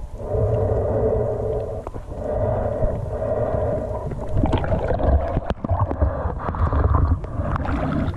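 Muffled underwater water noise from a swimmer's submerged camera, rushing and gurgling in waves every second or two. From about halfway on, short knocks and splashes join it as swimming strokes break the surface.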